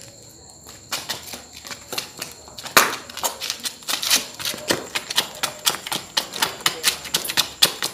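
Quick, sharp taps of a child's heeled sandals stamping on a concrete floor in samba footwork, several taps a second, starting about a second in.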